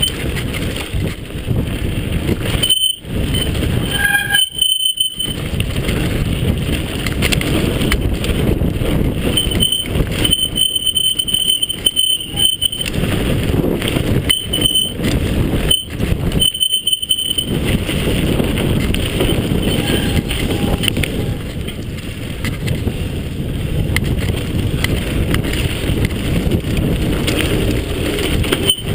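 Mountain bike ridden fast down a rough dirt trail: a continuous rattle and rumble of tyres, chain and frame over the bumps, with a thin high squeal that comes and goes many times.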